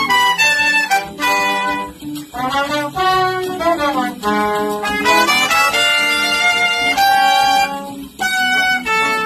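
A horn trio of saxophone, trumpet and trombone playing a jazz arrangement together, the three horns moving from note to note in harmony.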